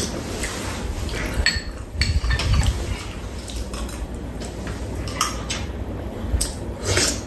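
Metal spoons and chopsticks clinking irregularly against ceramic bowls and a metal serving tray during a meal, with eating noises.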